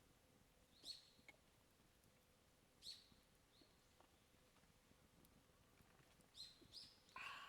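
Faint bird calls, short high chirps about every two seconds, each dropping in pitch and then briefly held, against a near-silent background with a few faint ticks. A louder, lower sound comes in near the end.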